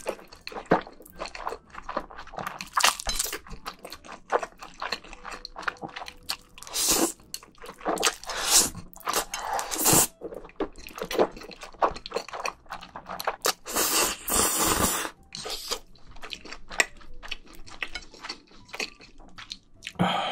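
Black bean sauce noodles being slurped and chewed close to the microphones: several long slurps of about a second each among many short, wet chewing sounds.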